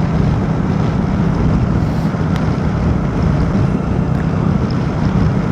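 Motorcycle riding at highway speed: a steady engine drone mixed with wind noise on the microphone.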